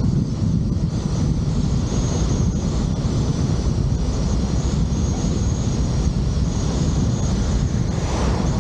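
Steady low rumble of wind buffeting the camera's microphone, mixed with the road noise of a vehicle travelling at speed. A faint thin high whine runs over it.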